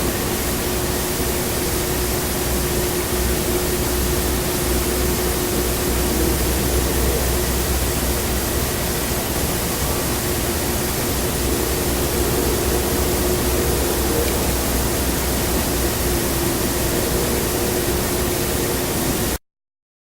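Loud, steady hiss of recording noise, with a faint held tone underneath that wavers slightly in pitch now and then, which the uploader takes for an unknown creature moaning. It all cuts off suddenly near the end.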